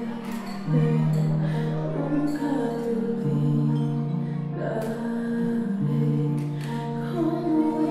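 Dance music playing over a hall sound system, with held chords that change every second or two.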